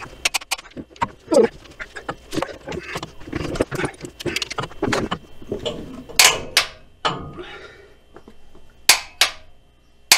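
Torque wrench ratcheting in short strokes as the rear main bearing cap nuts are run down to 85 foot-pounds, with a few louder, sharper metal clicks in the second half.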